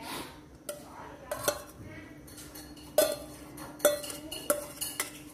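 Metal spoon scraping and tapping against a stainless steel bowl while diced dragon fruit is pushed out of it, giving a string of sharp clinks, each with a short ring.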